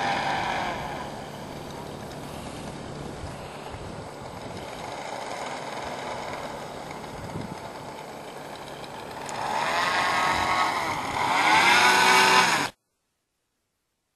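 Propeller motors of a large remote-controlled camera blimp running overhead. The engine note swells and rises and falls in pitch, loudest at the start and again in the last few seconds, then cuts off suddenly near the end.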